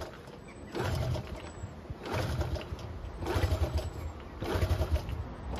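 Honda C70 Cub's single-cylinder four-stroke engine being kick-started on full choke, turning over in four spells about a second apart without starting.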